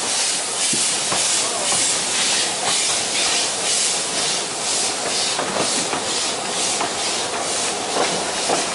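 Narrow-gauge steam locomotive working steadily under steam: a regular exhaust chuff of a little over two beats a second, with a hiss of steam and a few faint clicks.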